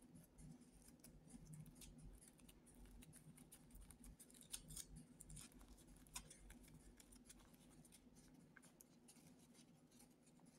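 Faint crinkling of a pleated paper cupcake liner as it is peeled off a soft cupcake by hand: an irregular run of small, crisp crackles.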